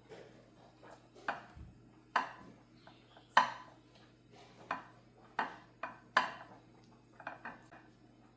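Dishes and utensils being handled: a dozen or so irregular clinks and knocks, some sharp and loud.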